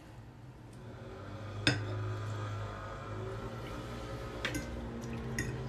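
Metal fork clinking against a ceramic plate: a sharp clink about a second and a half in, then two more near the end, over a low steady background hum.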